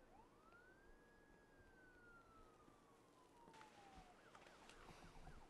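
Faint distant siren: one slow wail that rises and then falls away, followed about three and a half seconds in by a quicker, repeating yelp.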